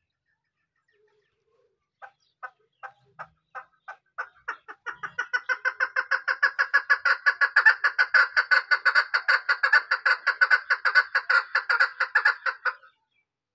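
Chukar partridge calling: a train of short notes that begins slowly, about two or three a second, then speeds up into a fast, even run of loud chuck notes and stops abruptly near the end.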